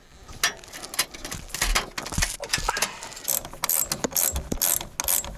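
Ratchet wrench clicking in quick strokes, tightening the clamp bolts of a chimney pipe's rain skirt. The clicks are sparse at first and come fast and steady from about halfway in.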